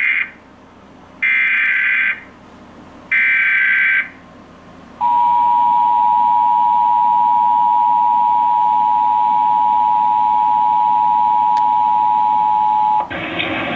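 Emergency Alert System Required Monthly Test on a weather radio. It opens with the SAME digital header: the tail of one data burst, then two more, each about a second long. About five seconds in comes the steady two-tone EAS attention signal (853 and 960 Hz), held for about eight seconds and cut off as a voice begins near the end.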